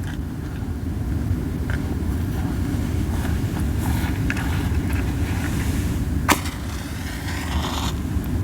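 Camellia-wood campfire burning hot: a steady low puffing rumble of strong flames with scattered crackles, and one sharp loud pop about two-thirds of the way through.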